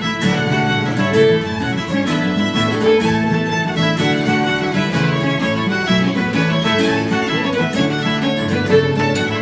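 Fiddle leading a pipe jig, with strummed guitar accompaniment, in a traditional session.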